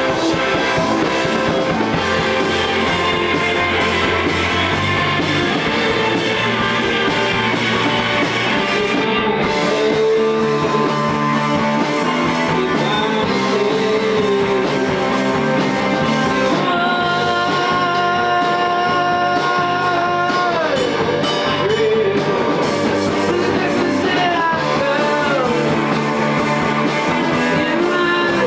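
Indie rock band playing a song, with singing and electric guitar over a steady beat.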